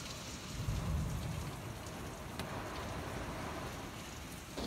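Steady rain falling, an even hiss with a brief low rumble about a second in and a few sharp ticks of drops.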